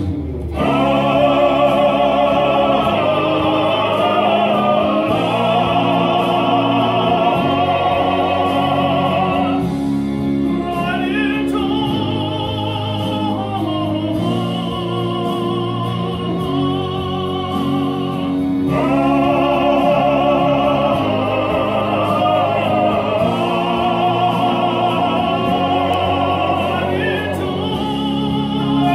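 Male vocal quartet singing a cappella in close four-part harmony, in a classical yet African choral style, with vibrato on the held notes. The high voices fall back for several seconds in the middle while the low voices carry on, then come back in.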